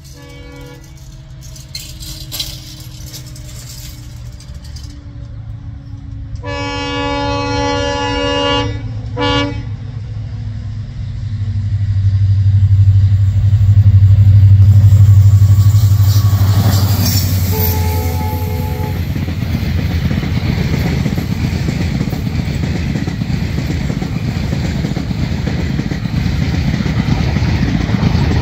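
An express passenger train hauled by a diesel locomotive approaches and passes close by. The horn sounds one blast of about two seconds plus a short toot, then the engine's low drone swells as the locomotive goes by, and a brief, lower horn note follows. The coaches then roll past with a steady rumble of wheels on rail.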